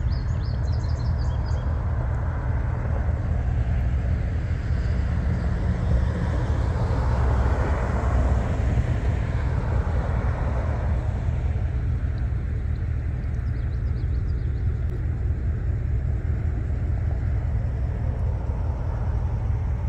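Steady low rumble of road traffic, swelling as a vehicle passes about seven to ten seconds in.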